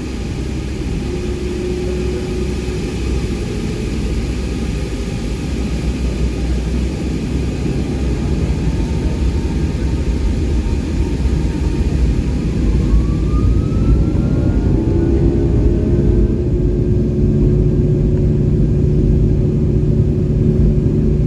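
Boeing 757's Rolls-Royce RB211 turbofan engines running, heard from inside the cabin as a steady rumble and hum that slowly grows louder. About 13 seconds in, a whine rises in pitch and then settles into steadier, lower tones as the engine speed changes.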